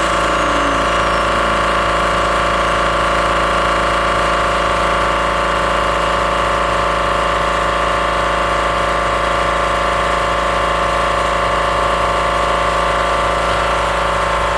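Home-built CNC router running, its spindle giving a steady whine made of several constant tones over a low hum.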